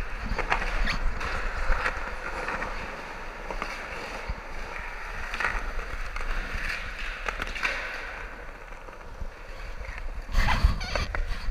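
Skateboard wheels rolling over a concrete skatepark floor: a steady rolling noise with scattered clicks, and a louder clatter about ten and a half seconds in.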